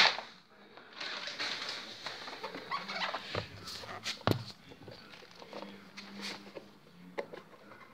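Handling noise of a rubber diving-fin foot pocket being gripped and bent: rubbing and rustling, with a sharp knock about four seconds in and a low drawn-out sound in the second half.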